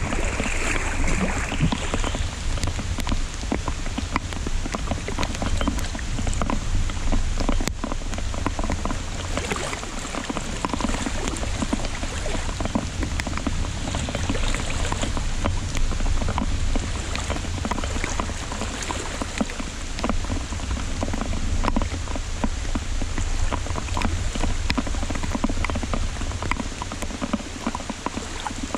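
Heavy rain falling, a dense, steady patter of many drops, with a steady low rumble underneath.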